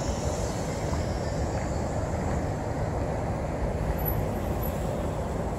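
Steady low rumble of downtown city traffic, an even, unbroken noise with no single event standing out.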